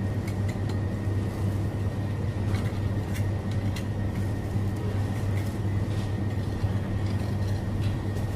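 Steady low mechanical hum with a faint, steady high whine and scattered light clicks.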